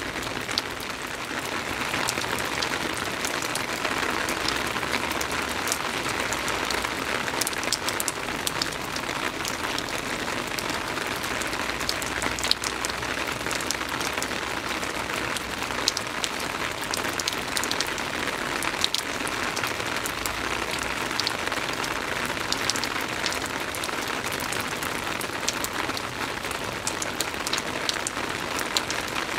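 Soft, steady rain: an even hiss of rainfall with many small drop ticks scattered through it.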